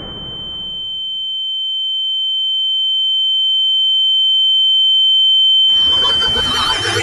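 A steady, high-pitched electronic ringing tone, with a fainter lower tone beneath it, swelling slowly louder. About six seconds in, a loud harsh noise breaks in over it.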